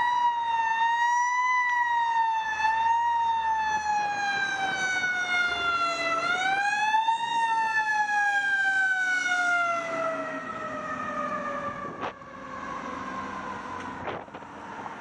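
Fire truck siren wailing: a single tone that slides slowly down, swoops back up about six seconds in, then sinks again and fades away over the last few seconds.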